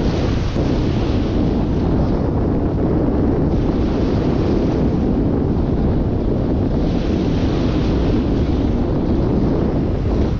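Wind buffeting the microphone in a steady low rumble, over small shore waves breaking and washing up the sand, each wash swelling up about every three to four seconds.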